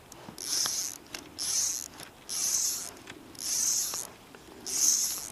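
Fly reel's click-and-pawl drag buzzing as line is pulled off it in five arm-length pulls, about one a second.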